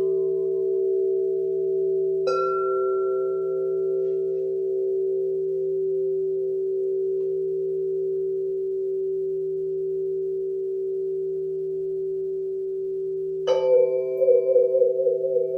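Singing bowls struck and left ringing in long, overlapping tones. A fresh bowl is struck about two seconds in, and a louder strike comes near the end, its ring wavering as it sounds.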